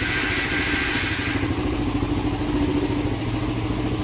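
Suzuki Raider 150's single-cylinder four-stroke engine idling steadily, just started by the alarm's remote start with the bike in neutral. A higher hiss over the engine fades out about a second and a half in.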